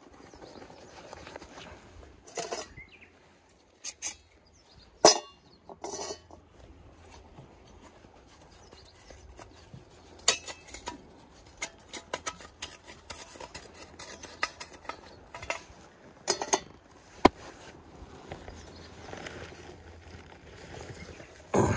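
Small metal camp stove parts clinking and knocking as they are handled and fitted together with gloved hands, in scattered sharp taps.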